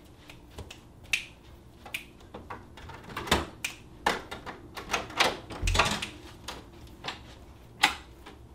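Fingers snapping in a light, even rhythm, then a cluster of metallic clicks and knocks as a hotel room door's lever handle and lock are worked, with a dull thud partway through and a sharp click near the end as the door is opened.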